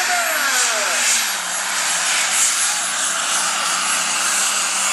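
Super stock pulling tractor's turbocharged diesel engine running loud and flat out under the load of the pulling sled, a dense engine-and-turbo hiss. Its pitch falls in the first second and then holds steady.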